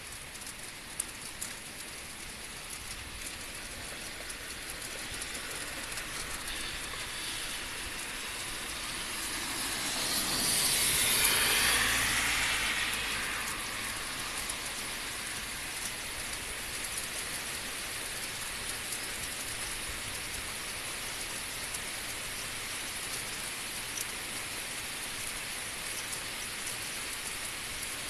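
Heavy rain falling on an asphalt road, a steady even hiss. About ten seconds in, a passing vehicle swells up over the rain and fades away again over a few seconds.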